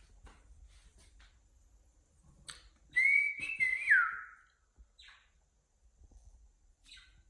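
Cockatiel whistling: one loud whistled call about three seconds in, held fairly level before sliding down in pitch at its end, with a few short, faint chirps around it.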